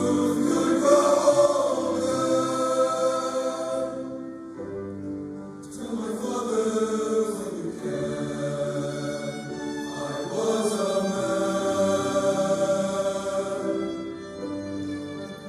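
Tenor-bass choir singing a slow piece in sustained, held phrases, accompanied by violin and piano. The singing eases to a softer lull about four to six seconds in, then swells again.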